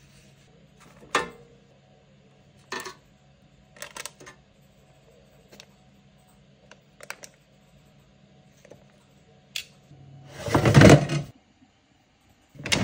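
Kitchen handling: a series of light clicks and taps as salmon pieces go into an air fryer basket, then a louder scrape and knock lasting about a second near the end. A faint steady low hum runs underneath.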